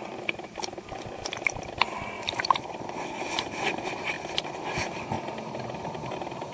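Water heard through an underwater camera: a steady low rush of moving water, with a run of sharp clicks and small pops over the first two and a half seconds.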